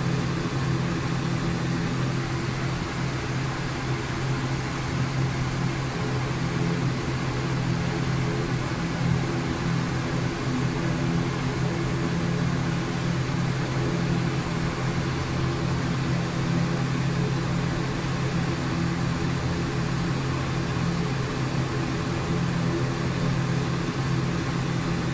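Steady hum of an airliner cockpit with the aircraft powered: equipment and ventilation fans giving an even hiss over a low, multi-toned drone that does not change.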